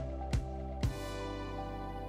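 Instrumental background music: a few struck notes, then a chord held from about a second in.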